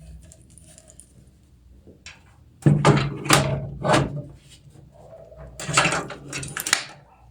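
Metal hardware clattering and knocking as a power supply is handled and set into a steel PC case, in two bursts of clanks and rattles, about three seconds in and about six seconds in.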